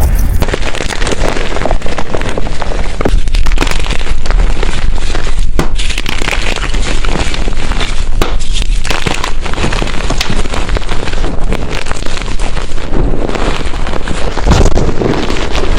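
Blocks of gym chalk being crushed and crumbled by hand: a continuous, dense crunching and crackling of many small breaks.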